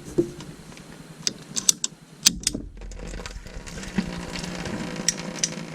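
Irregular sharp clicks and rattles of plumbing tools and pipe being handled, with a steadier low hum from about two seconds in.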